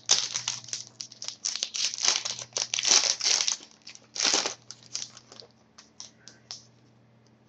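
A hockey trading-card pack wrapper being torn open and crinkled. A dense run of crackling rustles lasts about four seconds, thins to a few last crinkles and stops, over a faint steady hum.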